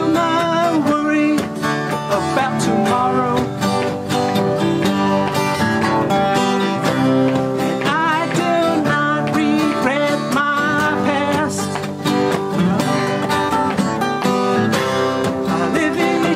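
Three steel-string acoustic guitars playing an instrumental break in a country-folk song: steady strummed chords under a picked melody line that bends in pitch.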